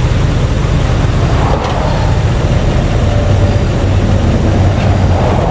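Loud, steady noise of interstate traffic passing close by, with a low rumble underneath and vehicles swelling past about a second and a half in and again near the end.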